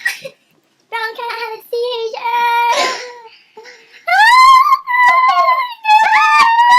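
A young person's high-pitched wordless vocalising: several whiny, squealing bursts with a sliding pitch, one rising sharply about four seconds in.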